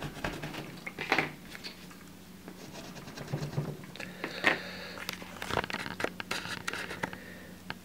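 A 3D-printed bar of graphite-filled conductive PLA dragged across paper like a pencil. It makes a run of uneven scratchy strokes and small taps, marking like a hard HB pencil.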